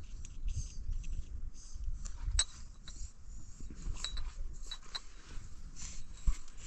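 A small drinking glass clinking several times as a toddler handles it, a few of the clinks ringing briefly, over a low rustling background.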